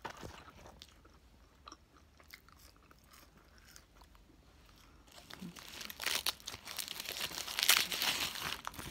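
Quiet chewing of French fries with small mouth clicks, then from about five seconds in, loud paper crinkling and crunching as a fast-food sandwich wrapper is unwrapped.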